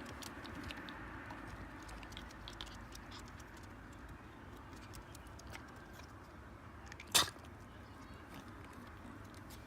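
Light patter and scattered clicks of paws and claws as a kitten and dogs play, with one short, louder hissing scuff about seven seconds in.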